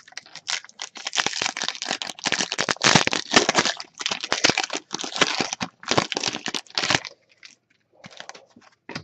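Crinkling and crackling of a foil trading-card pack wrapper being handled and torn open, dense for about seven seconds, then a few scattered light clicks.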